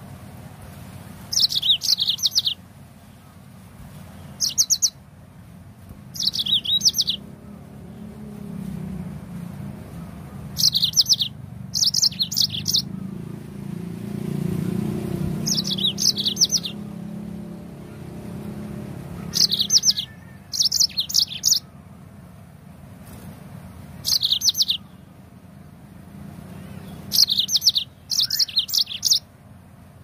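Yellow-fronted canary (Mozambique canary) singing in short bursts of rapid, high chirping notes. There are about a dozen brief phrases with gaps of one to a few seconds between them. A low rumble swells and fades in the middle.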